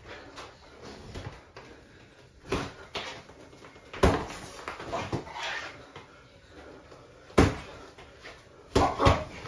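Boxing gloves landing punches and blocks in sparring: sharp, irregular thuds, the loudest about four seconds in and again past seven seconds, with a quick pair close together near the end.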